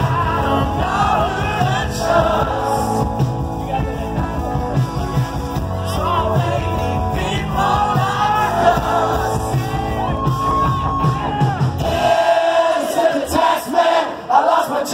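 Live rock band playing loud with the lead singer singing into a handheld microphone over guitars, bass and drums. About twelve seconds in, the band drops out, leaving the voice and the crowd.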